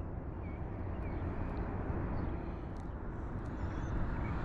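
Steady low outdoor rumble and hiss, with a few faint, short, high chirps.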